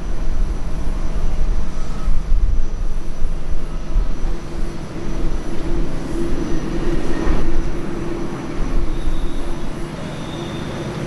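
Boeing 787-9 jet engines at taxi power, a steady low rumble, joined about halfway by a steady hum.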